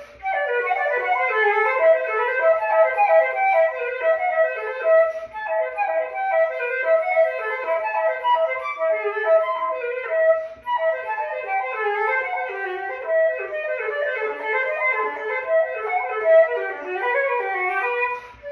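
Yamaha YFL-681H flute played solo: a quick running melody of short notes, with brief pauses for breath about five and ten seconds in.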